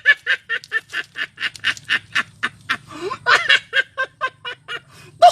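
An animal giving a rapid series of short, repeated calls, about four a second, with a louder call just before the end.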